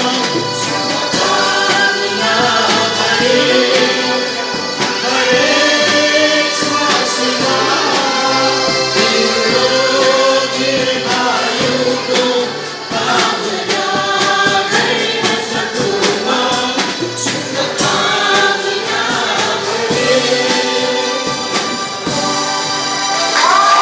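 Music with a group of voices singing together in chorus.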